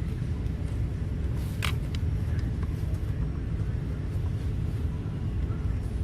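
Steady low rumble of a running vehicle, with one sharp click about one and a half seconds in.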